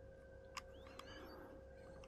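Near silence: room tone with a steady faint hum, two faint clicks about half a second and a second in, and a faint brief chirp between them.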